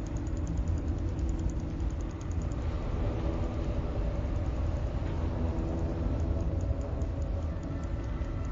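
Electric shaver motor running steadily, a continuous mechanical hum with a buzzing edge.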